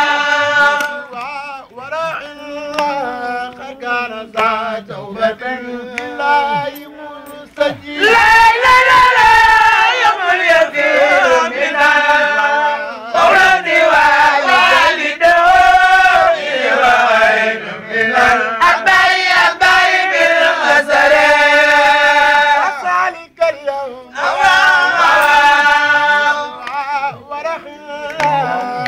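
A man chanting Arabic religious verses into a microphone, amplified, with long held, wavering notes. The chant grows louder and fuller about eight seconds in and breaks off briefly about twenty-three seconds in.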